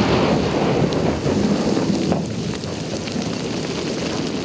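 Rumble of an engineering demolition charge blasting rock for a mountain road, dying away slowly, with many small clicks of stones and soil falling back to the ground.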